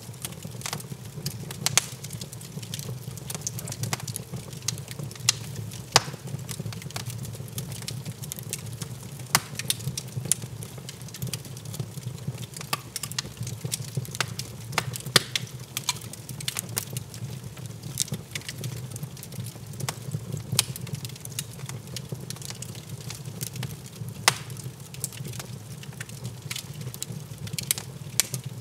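Wood fire crackling in a fireplace, with irregular sharp pops over a steady low rumble.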